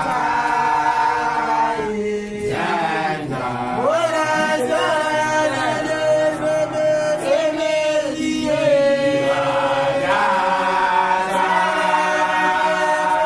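A group of voices chanting together in long held notes, with pitch slides between them. It is a chant of the lebollo (Basotho initiation) kind.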